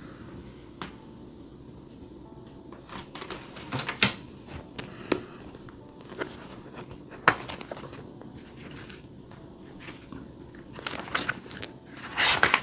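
Handling sounds at a desk: a few sharp knocks and taps as a notebook is picked up and set down, then its thin Tomoe River paper pages rustle as it is opened, busiest near the end.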